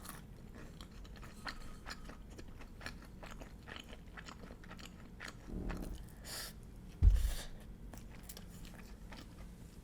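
Close-miked chewing of crispy karaage (Japanese fried chicken): a run of small crunches and mouth clicks. A dull thump about seven seconds in is the loudest sound.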